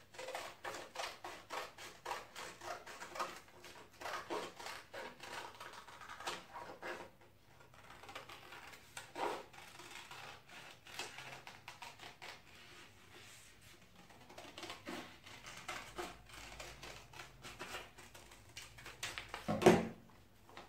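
Scissors cutting through folded paper in runs of short snips with pauses between. A louder knock comes near the end.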